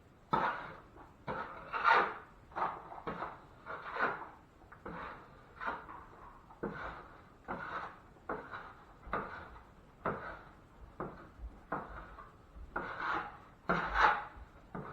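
Metal drywall knife scraping over joint compound in repeated short strokes, about one or two a second, some louder than others.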